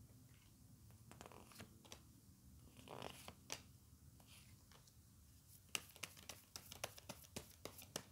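Tarot cards being handled and laid out on a marble tabletop, faint. There is a soft swish of card on card about three seconds in, then a run of quick light clicks and taps as cards are set down over the last couple of seconds.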